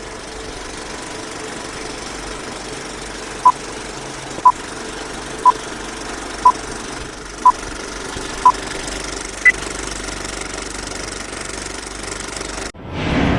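Steady engine noise, likely the Bell 47 helicopter's piston engine running, with six short beeps at the same pitch a second apart, then a seventh higher beep. The engine sound cuts off abruptly near the end.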